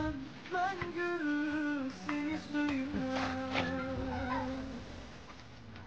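A single voice chanting a slow melody in long held notes that step gently up and down, stopping a little before five seconds in.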